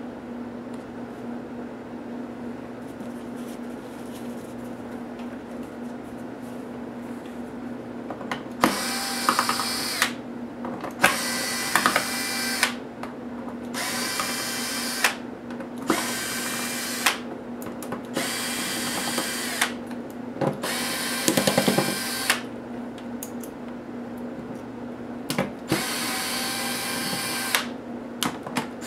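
Cordless electric screwdriver running in short bursts of one to two seconds, about seven in a row with brief pauses and small clicks between them, beginning about a third of the way in, as it backs out the screws of a laptop's bottom case. Before it starts there is only a faint steady hum.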